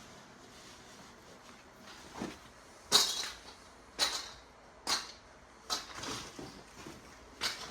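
A series of sharp metal knocks and clacks, about six, roughly a second apart, the loudest about three seconds in: parts of a stainless-steel steam table, doors or lids, being handled and shut.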